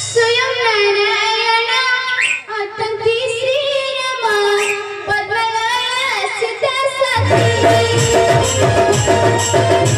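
A girl singing a slow, wavering melodic line with vibrato into a microphone, unaccompanied at first. About seven seconds in, drums come back in with a quick, steady beat under the music.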